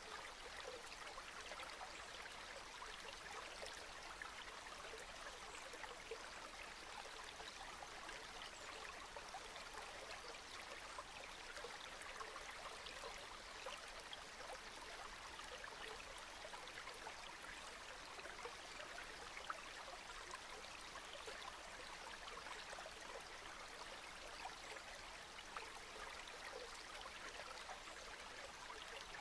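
Steady rain: an even hiss of many small drops falling, with no change in strength.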